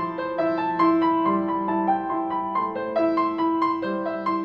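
Background piano music: a melody of evenly paced notes, about two a second, over a held low note.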